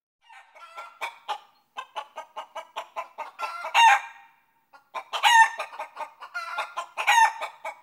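Brown hens clucking in quick runs of short calls, with a few louder, drawn-out squawks.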